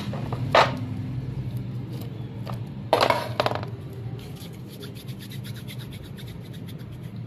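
Hands rubbing and scraping through sesame seeds in a plastic tray, with one loud rough rustle about three seconds in and light scattered ticks after it, over a steady low hum.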